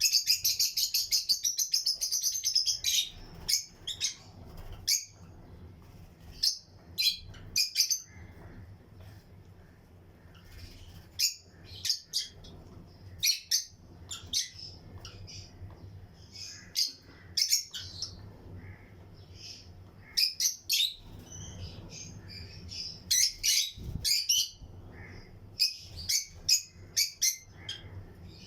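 A colony of lutino lovebirds chirping: a rapid run of shrill chirps for about the first three seconds, then short, sharp chirps in scattered clusters.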